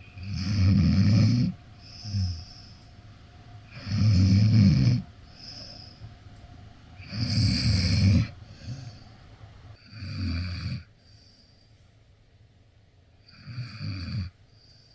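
Akita dog snoring in its sleep: five loud snores about three seconds apart, with softer breaths between them, the last two snores quieter.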